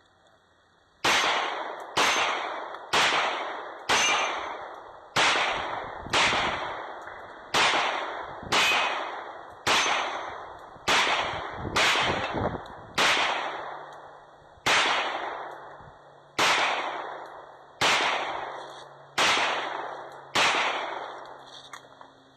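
A string of about seventeen gunshots fired at roughly one a second, each ringing off in a long fading echo.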